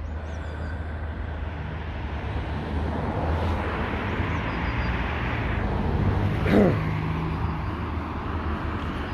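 Road traffic with a steady low rumble; a car passes close by about six and a half seconds in, swelling up and falling away.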